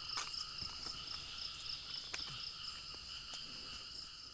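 A chorus of crickets and other insects chirring steadily in several high pitches, one of them pulsing a few times a second, with a few light clicks.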